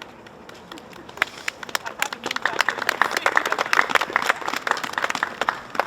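Audience applauding: a few claps about a second in, swelling to steady applause, then thinning out near the end.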